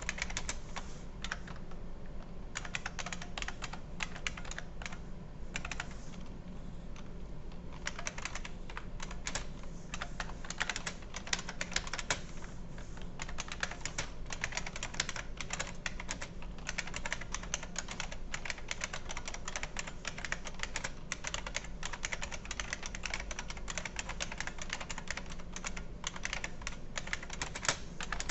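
IBM Model M keyboard's buckling-spring keys being typed on quickly and continuously, a dense run of sharp clicks with a couple of brief pauses.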